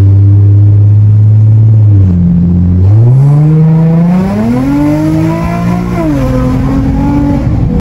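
Nissan 350Z's V6 engine heard from inside the cabin, running at steady revs, then revving up as the car accelerates hard for a few seconds and dropping back to lower revs near the end.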